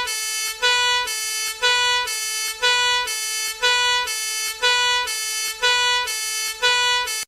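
Two-tone emergency-vehicle siren going 'nee-naw', stepping between a short higher note and a longer lower note about once a second, then cutting off sharply.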